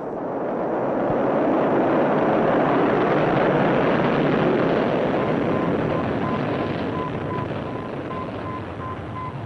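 Rocket launch noise swelling over the first couple of seconds and then slowly dying away. About halfway in, a steady train of short, high, evenly spaced beeps starts: the radio signal of Sputnik 1.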